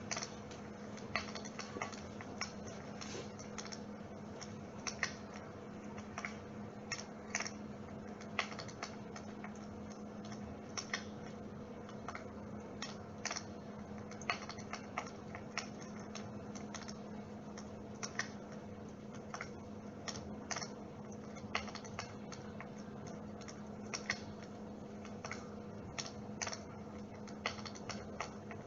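Dimplex mist-effect electric fireplace running, with a steady low hum and irregular crackling clicks, roughly one or two a second, like burning wood.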